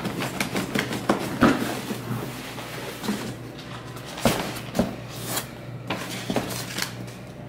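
Cardboard boxes and packaging being handled: rustling and scraping with several sharp knocks as a boxed airsoft pistol is lifted out of a shipping carton and its box opened.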